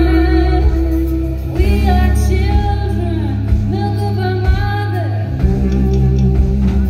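A live band playing: a woman sings lead over deep, sustained bass notes and guitar, with drum and cymbal strokes, heard in a hall.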